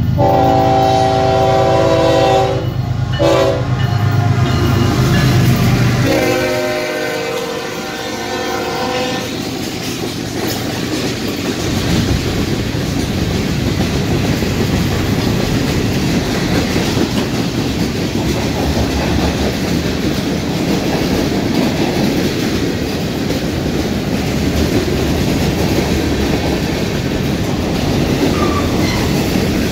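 Diesel freight locomotive sounding its air horn in several long blasts, each a chord of tones, over its engine rumble. Then the train's cars roll past with a steady rumble and rattle of wheels on the rails.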